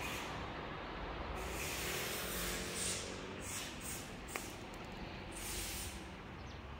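Low steady rumble of outdoor background noise with several short bursts of hissing and one sharp click about four seconds in.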